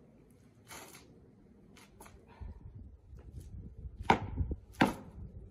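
Sounds of a Bajiquan form being performed: a few faint swishes early on, then, over a low rumble, two sharp smacks from the practitioner's strikes near the end, under a second apart.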